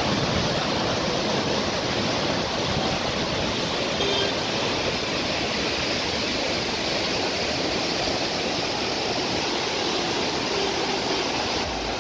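Muddy floodwater rushing and churning below a dam's open spillway gates: a steady, dense rush of water with no letup.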